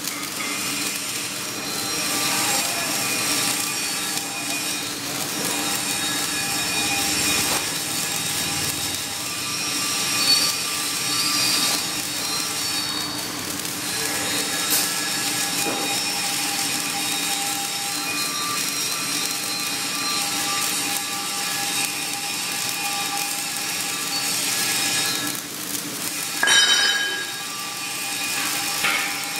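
Flux-cored arc welding (FCAW) on carbon steel plate in the vertical 3G position: the arc crackles and sizzles steadily, with a brief louder burst near the end.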